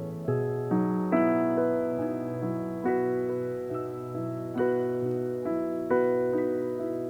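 Calm, slow solo piano music: soft notes and chords struck about every half second to second, each fading away.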